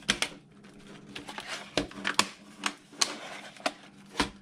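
Sharp plastic clicks and knocks as a laptop's bottom cover panel is pressed and snapped back into place on the base, about eight irregular clicks over a faint steady hum.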